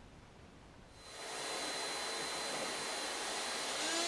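About a second of near-quiet, then the steady whirring hiss of an oscillating multi-tool running. Near the end it takes on a steady buzzing tone as the blade starts cutting into the cured fibreglass.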